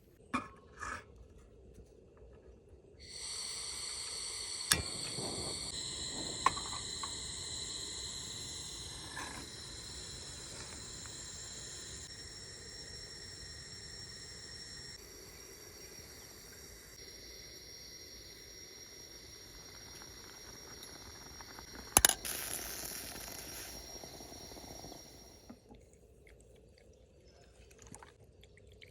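Moka pot hissing and sputtering with high, steady whistling tones as the coffee is forced up through it, running for about twenty seconds and then stopping. A few sharp clicks come over it.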